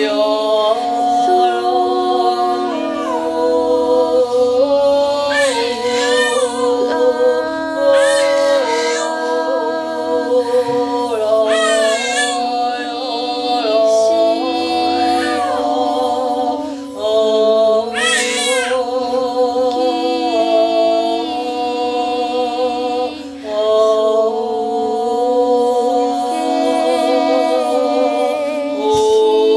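A man's improvised wordless singing: long held notes with a wide vibrato, joined by sliding pitches, over a steady lower drone.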